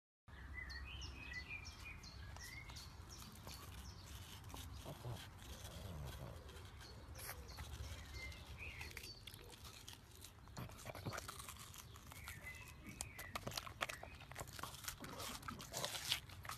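A pug biting and chewing a slice of watermelon: faint crunching bites that come thicker near the end. Birds chirp in the background over a low steady rumble.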